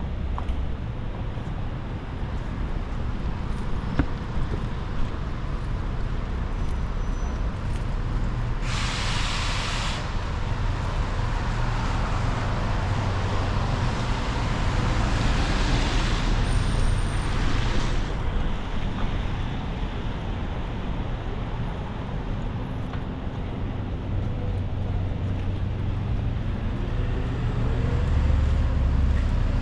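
Street traffic on wet roads: a steady low engine rumble with vehicles passing. A short, sharp hiss comes about nine seconds in, a longer swell of tyre hiss follows a few seconds later, and an engine note rises near the end.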